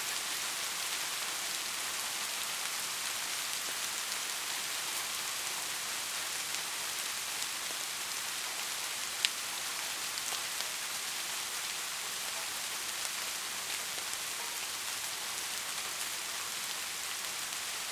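Steady rain falling as an even hiss, with faint scattered drop ticks and one sharper tick about halfway through.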